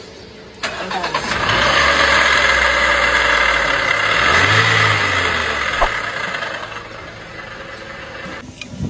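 Car engine running with a loud, noisy mechanical sound that starts suddenly. About four seconds in there is a brief rise and fall in engine pitch, like a short rev, and the sound cuts off abruptly near the end.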